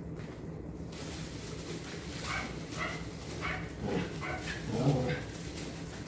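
Dog whining and yipping: a string of short high-pitched whimpers, then a louder, lower bark-like call about five seconds in.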